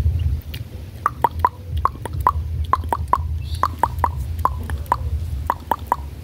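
A quick, irregular series of short hollow clicks, about eighteen in all and often in runs of two or three, starting about a second in, over a steady low rumble.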